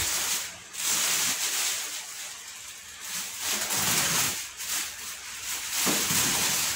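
Thin plastic bag rustling and crinkling as it is pulled over a flat-screen TV panel, coming in about four swells of crackling rustle.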